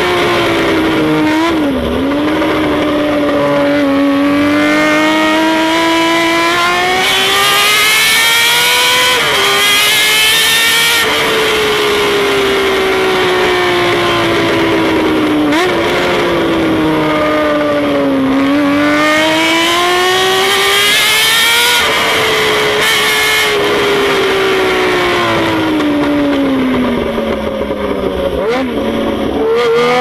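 Honda CBX's air-cooled inline-six engine heard on board at speed. Its pitch climbs and sinks slowly several times, with sudden jumps where the rider changes gear.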